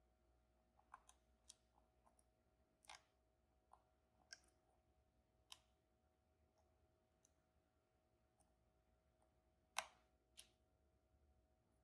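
Faint, irregular clicks and ticks of a lock pick and tension tool working the pins inside a Banham M2002 lock, with a sharper click about ten seconds in.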